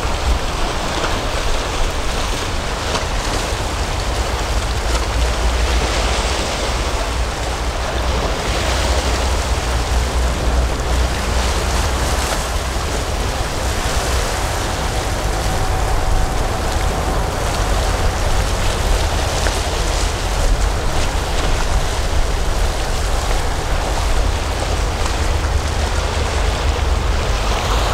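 Steady sea surf washing on the shore, with wind rumbling on the microphone.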